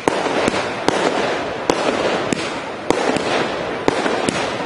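Fireworks display: a rapid, irregular string of sharp bangs, about two a second, over a continuous hiss.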